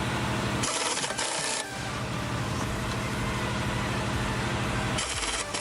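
Power tool running with a fast, steady rattle, stopping briefly about a second in, with bursts of hiss.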